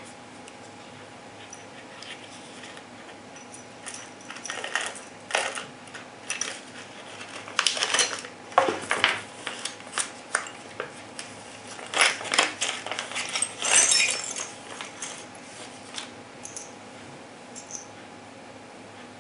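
A small clear plastic bag of mounting hardware being opened, crinkling, with small metal screws and parts clinking in the hand. The rustling and clinking come on and off through the middle stretch, loudest around the middle and again a little later.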